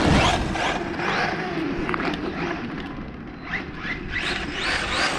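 Brushless electric motor of a Maverick Quantum RC truck on a 3S battery whining up and down in quick throttle bursts, over the hiss of its tyres on the road. The bursts come faster near the end.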